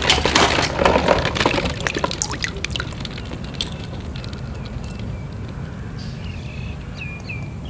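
Water splashing and plastic balls knocking together as a hand rummages through a tub of balls floating on water, for about the first two and a half seconds; then it settles to a few scattered drips.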